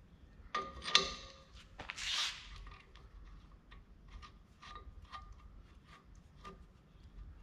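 Steel Green Teeth and their mounting hardware clinking and scraping against the Rayco RG50 stump grinder's cutter wheel as a tooth is fitted into its pocket by hand. There is a sharp ringing clink about a second in and a short scrape just after, then lighter scattered clicks.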